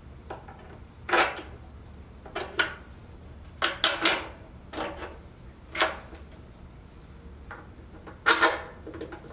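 An irregular series of short, sharp metal clinks and knocks, about a dozen over several seconds: parts and tools being handled while fitting a moped engine to its frame.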